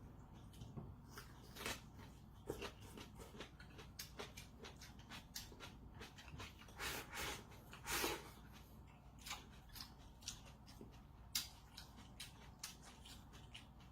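Someone chewing cooked baby bok choy close to the microphone: a faint, irregular string of small crunches and mouth clicks, a little louder around the middle.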